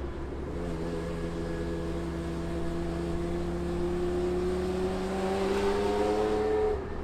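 Lancia Stratos's Ferrari Dino V6 engine pulling hard under acceleration, its pitch rising slowly and steadily. The sound cuts off suddenly near the end.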